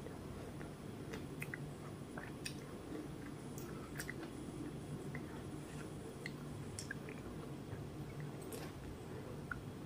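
Close-up mouth sounds of a person eating a ripe mango: scattered wet clicks and smacks of biting, chewing and sucking the pulp, over a steady low hum.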